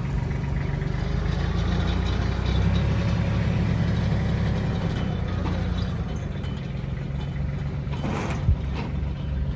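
Compact utility tractor's diesel engine running steadily, a little louder about two to five seconds in before easing off, with a single sharp knock near the end.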